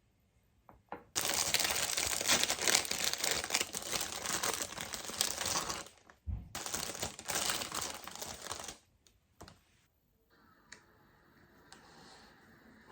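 Close crinkling and rustling as something is handled, in two long spells with a brief break about six seconds in, then a faint steady background hum.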